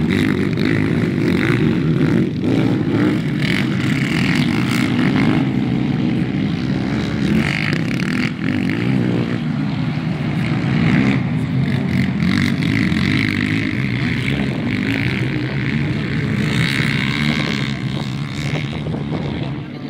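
Several sport quad bikes (ATVs) racing, their engines revving and accelerating with the pitch rising and falling as the riders work the throttle.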